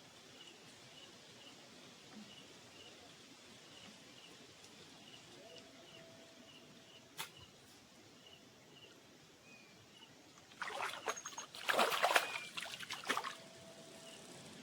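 A faint high chirp repeats steadily, about three times a second, over quiet riverside ambience. About ten seconds in, a few seconds of loud splashing and thrashing in the water, typical of a hooked fish being brought in to the bank.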